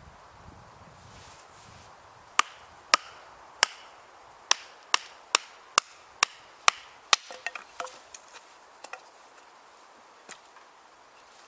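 A knife being batoned down through an upright piece of wood to split it for kindling: about ten sharp wooden knocks, roughly two a second, then a quick run of lighter cracks and clatters as the wood splits apart.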